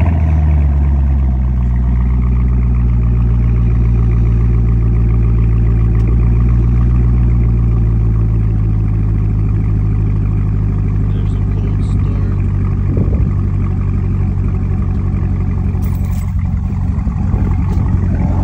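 Chevrolet C7 Corvette Stingray Z51's 6.2-litre LT1 V8 at fast idle just after a cold start, through a Borla aftermarket exhaust. It is a loud, deep, steady rumble that eases down slightly from the start-up flare in the first couple of seconds and then holds.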